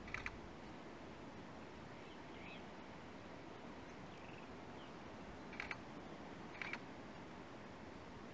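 Faint open-air bush ambience with a few soft bird chirps, broken by sharp double clicks: one right at the start and two more about a second apart past the middle.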